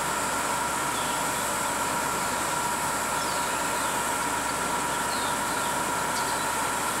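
Transit buses running, a steady engine hum with two constant whining tones, and a few short high chirps now and then.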